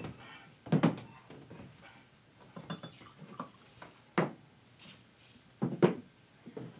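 Glassware knocking and clinking on a wooden bar counter as a bartender sets up a drink: a series of separate sharp knocks and clinks, about seven in all.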